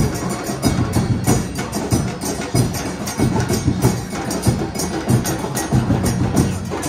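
Supporters' drum line playing a quick, steady beat on large bass drums, with sharp clicking strikes over the deep booms.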